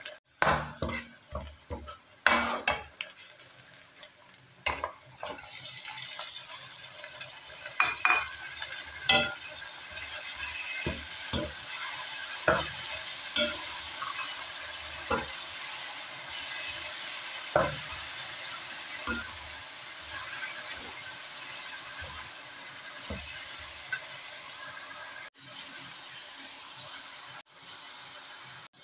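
A steel spoon stirring and scraping in an aluminium karahi of frying onions and green chillies, with sharp clinks against the pan. From about five seconds in, minced meat fries with a steady sizzle as it is stirred, and the spoon knocks the pan now and then.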